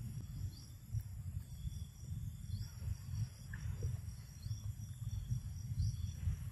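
Outdoor ambience: a steady high-pitched insect drone with a few short rising chirps, over a louder, uneven low rumble.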